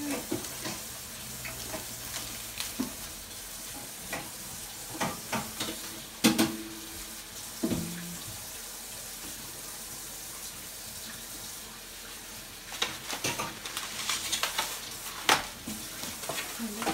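Kitchen tap running steadily into a sink as dishes are washed, with scattered clinks and knocks of dishes and utensils, busier near the end.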